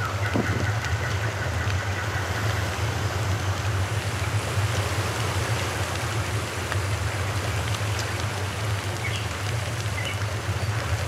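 Whole fish deep-frying in hot oil in an aluminium pot: a steady dense sizzle with scattered small crackles, over a constant low rumble.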